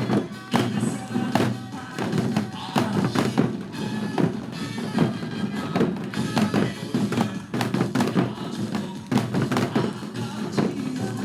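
Several janggu drums struck with sticks in time with upbeat trot backing music, many sharp drum strokes over the track.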